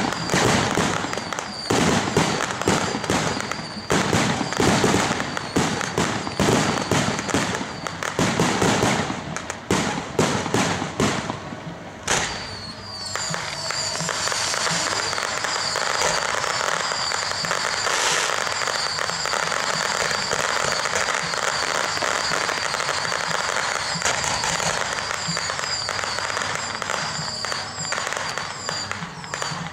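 Ground and rooftop fireworks going off: dense rapid bangs and crackling for about the first twelve seconds, then a steady hissing rush of spark fountains with a repeating high chirp over it.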